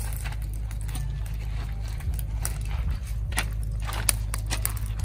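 Scattered clicks and knocks, the sharpest about four seconds in, over a steady low rumble.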